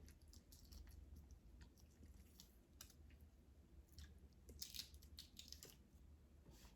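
Faint close-up eating sounds of a person chewing seafood: scattered soft clicks and crackles, busiest about two-thirds of the way through, over a low steady hum.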